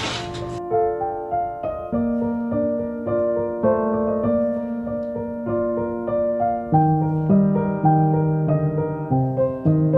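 Background piano music, a slow melody of held notes over a few lower notes.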